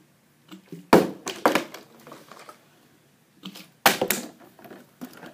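Plastic water bottle being flipped, hitting the edge of a cardboard cereal box and clattering onto a wooden floor: two loud knocks, about a second in and again near four seconds, each followed by a few smaller knocks as the bottle tumbles. These are failed landings off the box's edge.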